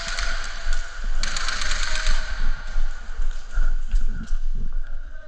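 Airsoft guns firing: a burst of rapid clicking shots about a second in, then scattered single shots and knocks.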